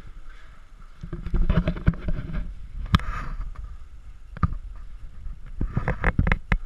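Handling noise from a body-worn camera as its wearer moves over a concrete floor: irregular scuffs and knocks of gear and footsteps, with a few sharp clicks.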